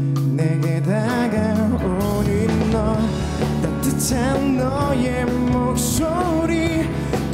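Live band performance of a gentle pop-rock song: a male voice singing over electric guitar and keyboard, with bass and drums coming in about two seconds in.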